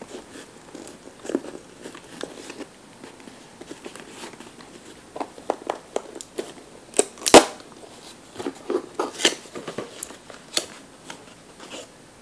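Cardboard box and paper packaging being handled and opened: scattered rustling and small clicks, with one sharp knock about seven seconds in.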